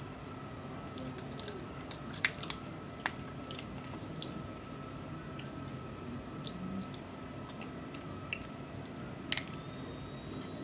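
Close-up eating sounds of snow crab: chewing and mouth noises while meat is picked from the leg shells with a small fork. A few sharp clicks and cracks come about two seconds in and one more near the end. A faint steady high tone runs underneath.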